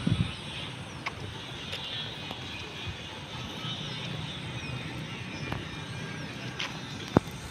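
Outdoor city ambience: a steady hum of distant road traffic, with a few light clicks, a low thump right at the start and a sharp click near the end.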